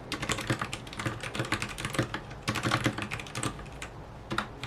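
Typing on a Royal Kludge RK68 mechanical keyboard with brown switches: quick runs of keystrokes in bursts, thinning out briefly about three-quarters of the way through.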